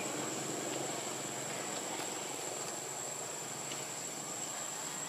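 Steady outdoor ambience: an even hiss with a constant thin, high insect drone, unchanging throughout.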